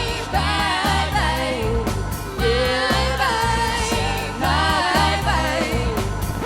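Vocal ensemble singing in harmony over a backing track with a steady bass line. The voices stop near the end.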